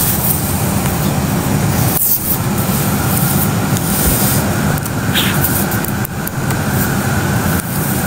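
Steady, loud background noise like road traffic, with no speech over it.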